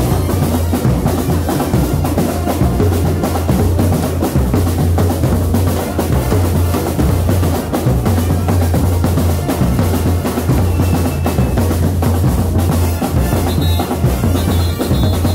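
A charanga, a Spanish festive street band of brass and drums, playing loud music with the drums prominent.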